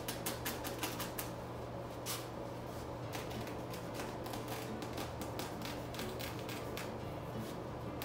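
Grow tent's door zipper being pulled open, its teeth giving a fast run of ticking clicks that come more closely packed from about three seconds in.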